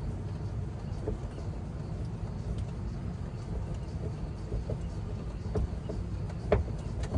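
Car running with a steady low rumble and a few light knocks, the loudest about six and a half seconds in. No rattle from the rear shocks is heard.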